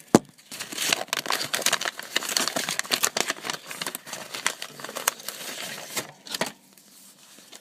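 Packing paper crinkling and rustling as a mail package is unpacked: a sharp click just after the start, then a dense run of crackles for about six seconds that dies away near the end.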